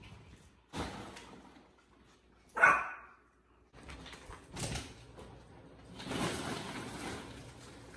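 Yorkshire terrier giving one sharp bark about two and a half seconds in, with softer knocks and a stretch of rustling noise in the second half as the dogs play.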